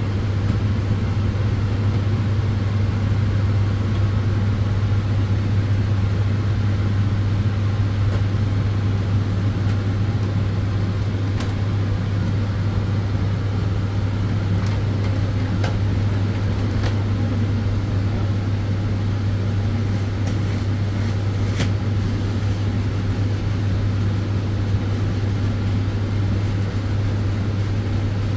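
Solarium tanning bed running: a steady low hum over the even rush of its cooling fans, with a few faint ticks.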